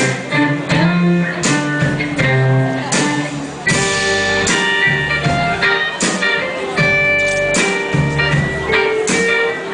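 A live band playing the instrumental opening of a song, led by electric guitars picking notes and melodic lines.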